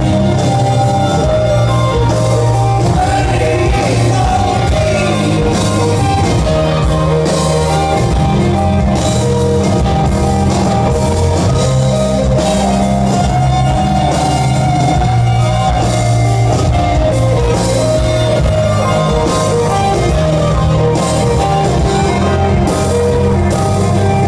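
Live rock band playing a slow, full-band passage, with a man singing drawn-out notes over guitar, bass and drums.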